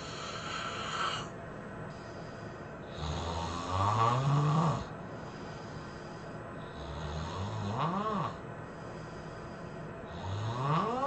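A person snoring: three long snores about three to four seconds apart, each rising in pitch, with faint hissing breaths between them.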